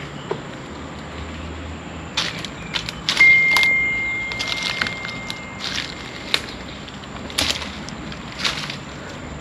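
Scattered crunching steps over dry leaves and rubble. About three seconds in, a single high ringing tone starts sharply and fades out over about three seconds; it is the loudest sound.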